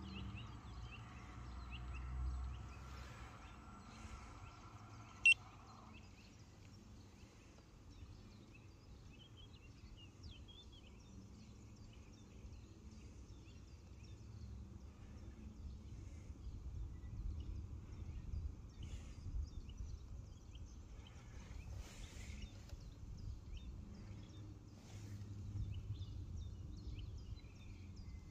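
Outdoor ambience: faint bird chirps over a low wind rumble on the microphone. A steady mid-pitched hum cuts off about six seconds in, and there is one sharp click about five seconds in.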